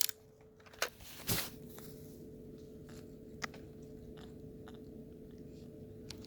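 A few faint clicks and crackling handling noises, the loudest about a second in, over a faint steady hum.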